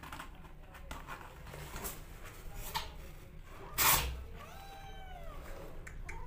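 Kittens suckling at a milk bottle with faint wet clicks. A short loud noisy burst comes a little under four seconds in, then a kitten gives one rising-and-falling mew about a second later.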